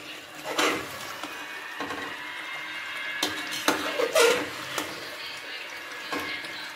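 Metal ladle scraping and knocking against the inside of an aluminium pressure-cooker pot as mutton is stirred through frying masala. The scrapes come irregularly, the loudest about four seconds in, over a steady sizzle.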